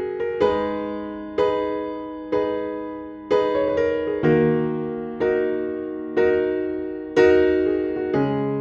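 Background music: piano chords, a new chord struck about once a second and fading away before the next.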